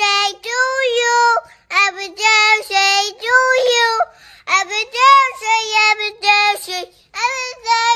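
A single high voice singing a melody in short held phrases, with brief pauses between them.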